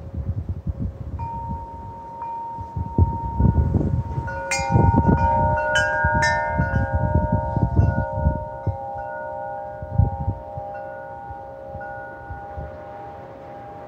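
Wind chimes ringing in gusty wind: a single tone about a second in, then a flurry of strikes about four to six seconds in whose several tones ring on and slowly fade, over the low rush of the wind gusts.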